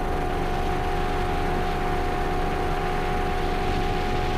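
Cabin noise of an MD 600N NOTAR helicopter in flight: a steady rush with a constant two-note hum, from its Rolls-Royce 250-C47M turbine and rotor system.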